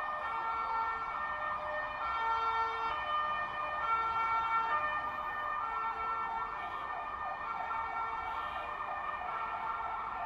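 Fire engine siren sounding in an alternating two-tone hi-lo pattern, switching about halfway to a fast warble.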